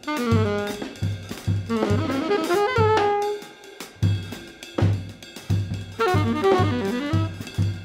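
Jazz/experimental composition: a melodic lead line winding up and down over drums, with a steady low pulse about three times a second. It drops back briefly about three and a half seconds in.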